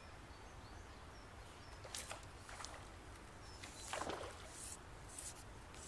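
A hooked small wild trout splashing and thrashing at the water's surface: a few short, faint splashes from about two seconds in, the biggest about four seconds in. Birds chirp faintly in the background.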